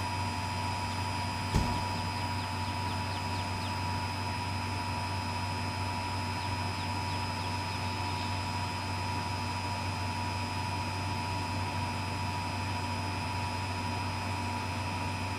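A steady low hum with thin high-pitched whine tones over it, and a single click about one and a half seconds in.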